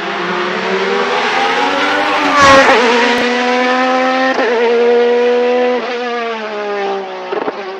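Alfa Romeo 155 DTM V6 Ti's 2.5-litre 690RC V6 race engine at high revs as the car passes, loudest about two and a half seconds in. It then pulls away with the pitch climbing, drops suddenly near six seconds as it changes up, and gives a few short crackles near the end.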